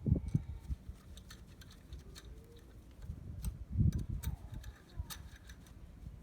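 Scattered clicks and dull knocks of hand tools and metal parts being handled during a supercharger pulley change, with a cluster of heavier knocks just after the start and again around four seconds in.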